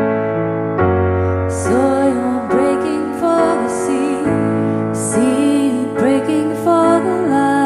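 Women singing a slow worship song to piano accompaniment. Sustained piano chords run throughout, and the sung melody enters about a second and a half in.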